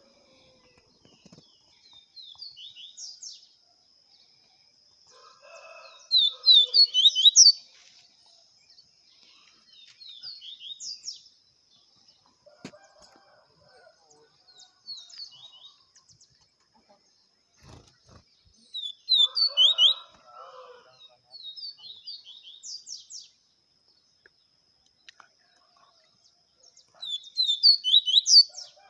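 Male double-collared seedeater (coleiro) singing the 'viviti' song type: short phrases of quick, sharp high notes, repeated about every four seconds, with some phrases much louder than others.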